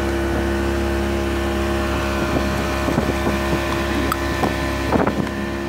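Motorboat engine running at a steady cruising speed, a constant drone.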